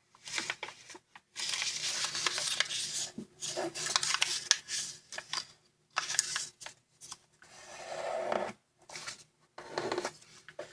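A square of origami paper rustling and being creased under the fingers: several stretches of crisp rubbing and crinkling with short pauses between.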